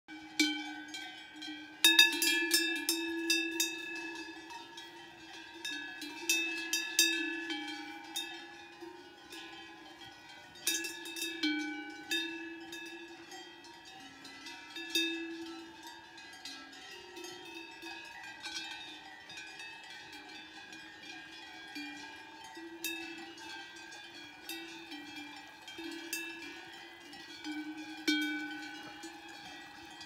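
Cowbells on grazing cows clanking and ringing irregularly as the animals move. The loudest strikes come about two seconds in, and again near the end.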